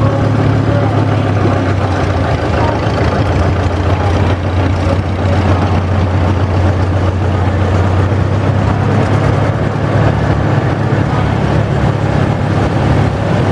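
Several antique farm tractor engines running at low speed as a line of tractors rolls past, a steady low engine drone.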